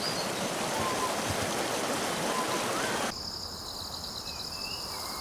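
Nature ambience: a steady rushing noise like running water, with a few faint bird chirps. About three seconds in it cuts suddenly to a steady high-pitched insect chorus, with a single short bird call over it.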